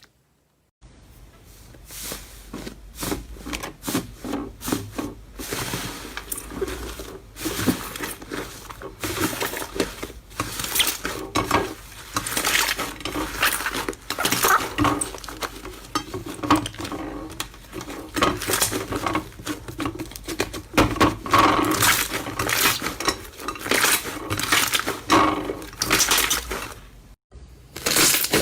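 Slime being squeezed and pressed by hand: a dense run of crackles and clicks. It stops briefly near the end, then starts again.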